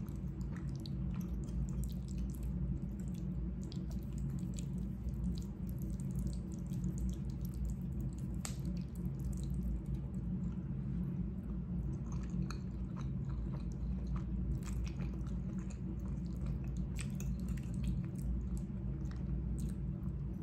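Close-miked chewing and wet mouth sounds as spaghetti in meat sauce is eaten, with many small scattered clicks, over a steady low hum.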